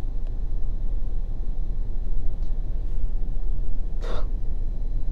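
Steady low rumble of a car's engine and road noise heard inside the cabin, with a brief hiss about four seconds in.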